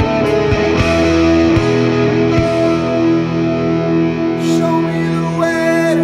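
Rock song: distorted guitar chords over drums, the drum hits stopping about two and a half seconds in and leaving held guitar notes.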